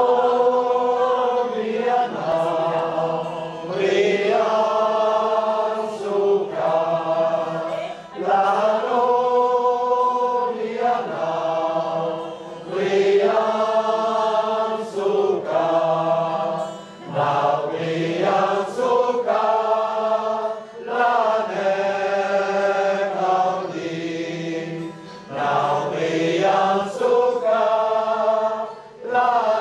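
Men's choir singing a Béarnais song unaccompanied, in long held phrases with short breaks for breath between them.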